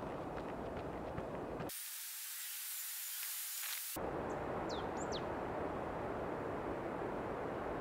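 Steady rushing outdoor hiss. About two seconds in, the low part of it drops out for two seconds and leaves only a thin high hiss. About five seconds in come two short, high chirps that fall in pitch.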